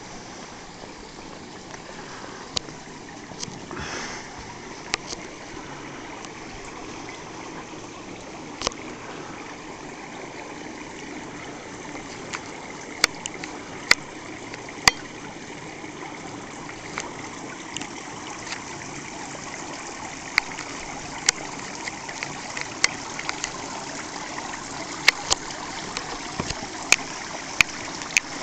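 Steady trickling rush of water running at a swimming pool, with scattered sharp clicks that come more often in the second half.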